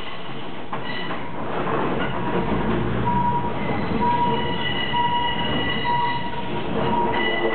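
Diesel railcar running along the track, heard from its driver's cab. About halfway in, a high tone starts repeating about once a second as the train reaches a road level crossing.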